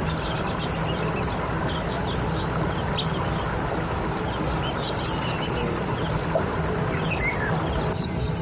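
Outdoor field ambience: a steady low rumble under a constant high insect-like whine, with scattered short bird chirps.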